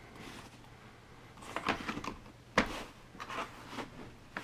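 Plastic slot-car track pieces and their border strips being pressed and slid together by hand: a few light plastic clicks, knocks and rubbing sounds after a quiet start, the loudest knock about halfway through.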